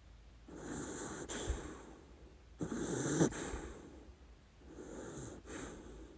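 A sleeping dachshund snoring: three separate noisy snoring breaths, the middle one the loudest and starting abruptly.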